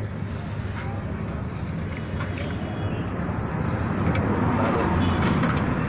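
An engine running nearby, a steady low hum that grows louder about four seconds in, with a few faint clicks over it.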